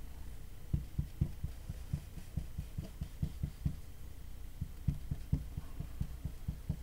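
A pencil drawing lines on paper on a desk, heard as an irregular run of soft low thumps, several a second, over a faint low hum.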